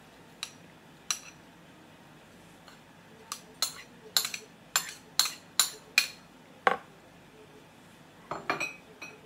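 A metal spoon and bowls clinking as chopped onion is scraped and knocked out of a small bowl into a mixing bowl: a run of sharp clinks, about two a second, in the middle, and a few more near the end.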